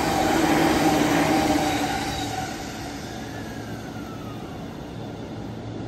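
An electric commuter train running past on the adjacent track, loud with a whining tone over rail noise, fading after about two seconds. A faint falling whine follows, then the steady low hum of the E231-500 series train standing at the platform.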